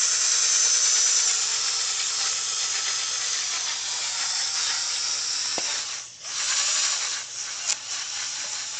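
Electric drill spinning an abrasive sanding disc against a plastic headlight lens, a steady whirring hiss of sanding. It stops for a moment about six seconds in, then starts again.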